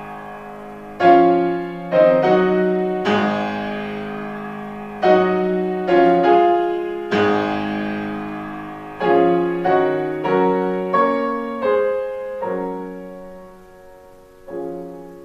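Solo piano playing slow chords, each struck and left to ring out. The playing grows softer toward the end, with a last quiet chord just before the end.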